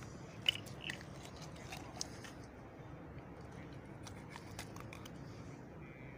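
Knife cutting into a fish and its guts being pulled out: small wet crunching and scattered sharp clicks, the loudest about half a second in, over a steady low hum.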